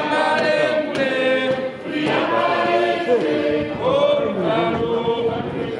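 A group of people singing together in chorus, several voices carrying a slow song with long held notes.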